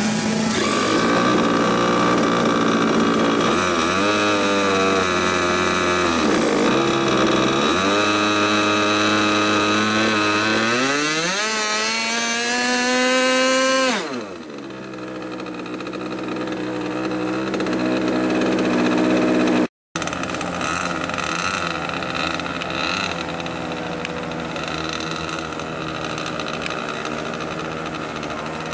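Large radio-controlled model airplane engine being started with an electric starter on the spinner, then run up on the ground. Its pitch dips, then climbs steadily to full throttle about 13 seconds in and drops off suddenly a second later. After a short break, a quieter engine runs steadily.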